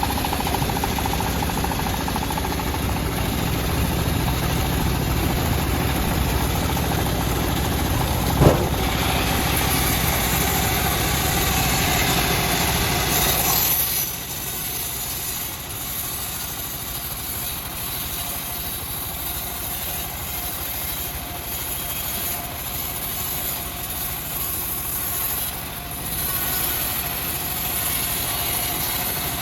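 Homemade bandsaw sawmill running with a steady mechanical drone, with one sharp knock about eight seconds in. About halfway through the sound drops to a quieter, steady run.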